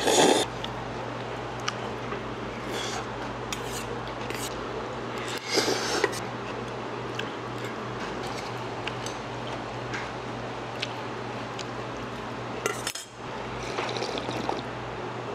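Eating utensils clicking and tapping against a bowl, with a few short noisy swells, over a steady low hum.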